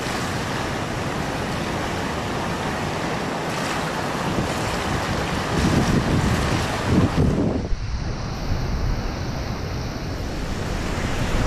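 Wind rushing on the microphone over the wash of water at the shore, with heavier low gusts about six to seven seconds in. A brief dip near eight seconds, then a steady rushing noise again.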